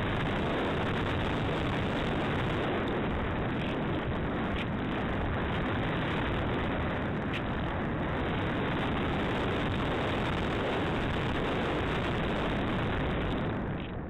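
Steady rushing of air over the microphone of a camera riding on an RC glider in flight. It dips briefly near the end.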